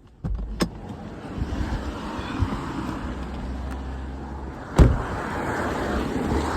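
Steady rushing background with a low rumble, and a single sharp clunk about five seconds in as a car's rear door is opened.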